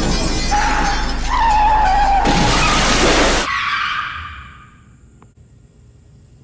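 Car crash sound effect: tyres squealing, then a loud crash with shattering about two and a half seconds in, dying away over the next second or two.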